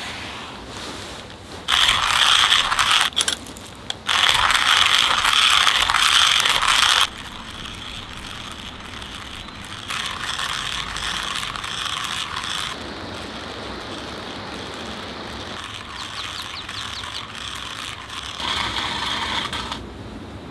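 Hand-crank burr grinder of a Caflano all-in-one coffee maker grinding coffee beans: a loud rasping crunch in two long bouts of cranking, then softer, shorter bouts later on.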